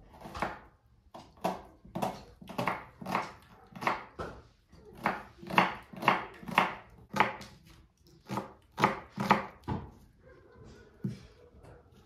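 Small kitchen knife chopping an onion on a wooden board, a steady run of sharp knocks on the wood at about two cuts a second.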